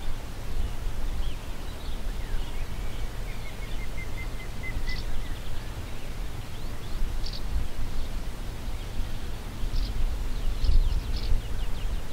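Wind buffeting the microphone in gusts, with small birds singing: scattered short high chirps and a quick run of notes a few seconds in.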